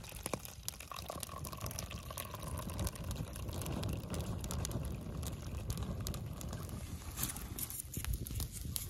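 Open wood fire crackling with a small brook trout roasting over it: many sharp, irregular crackles over a low rushing noise.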